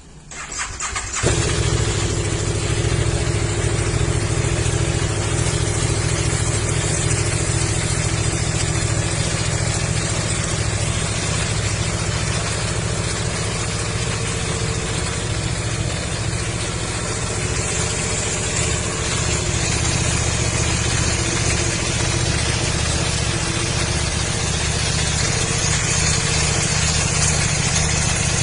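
KTM 1190 RC8's V-twin engine idling steadily through its exhaust. The sound comes in about a second in and then holds at an even level.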